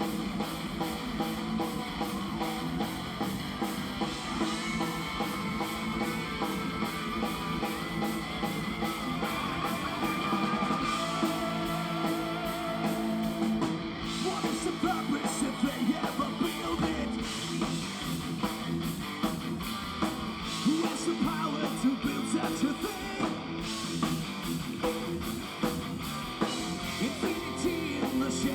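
Heavy metal band playing live, recorded from the audience: distorted electric guitars with a melodic lead line over fast drums and bass in an instrumental passage.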